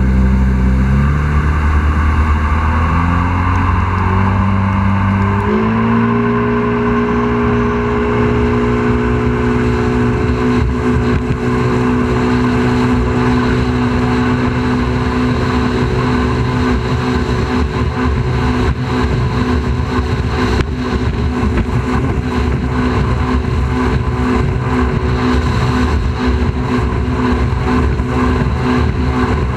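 A small boat's engine running under way, with a constant rush of wind and water. In the first few seconds the engine note steps up and down; about six seconds in it rises and then holds a steady pitch at cruising speed.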